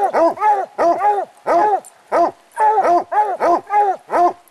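Coonhounds barking treed at the foot of a tree: a steady run of loud barks, several a second and often in pairs, each rising and falling in pitch. This is the tree bark that tells the hunter the raccoon is up the tree.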